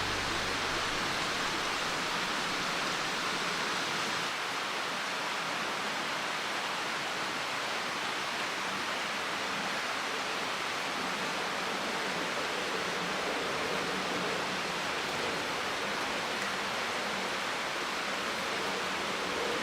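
Rushing water of a mountain stream, a steady even hiss.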